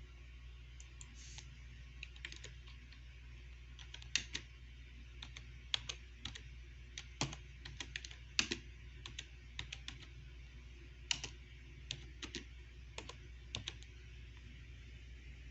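A string of irregular light clicks and taps, a few to several a second with short gaps, over a steady low hum.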